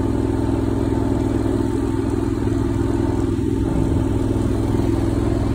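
Small vehicle engine running at a steady speed while driving, heard from on board: an even, unchanging engine hum.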